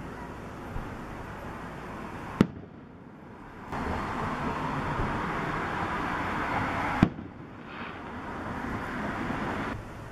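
Aerial fireworks display: two sharp shell bursts, about two and a half seconds in and again about seven seconds in, with a fainter bang near the start and a steady rushing noise between them.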